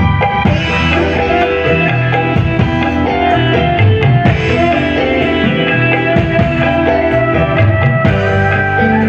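Live band playing amplified music: electric guitar lines over bass and drums, with kendang hand drum among the percussion.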